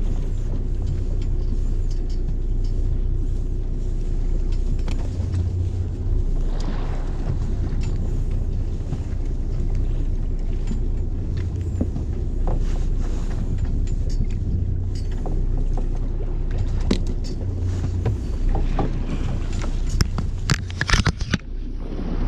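Fishing boat's engine running steadily, a low rumble. A few sharp clicks and knocks near the end.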